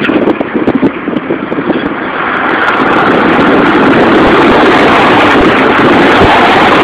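Car tyres squealing very loudly, choppy at first and becoming one continuous screech about two seconds in.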